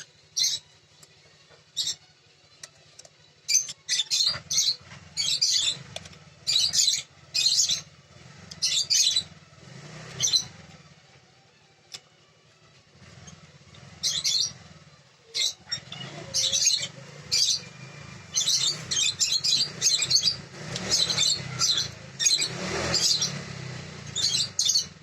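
Small birds chirping in short high bursts, over and over at irregular intervals, busiest in the second half, over a low steady hum.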